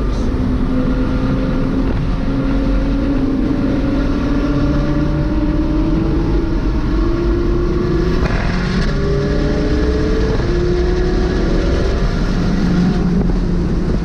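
McLaren 600LT Spyder's twin-turbo V8 pulling hard under acceleration, heard from inside the car. The pitch climbs slowly and drops at upshifts about eight and ten seconds in, then climbs again.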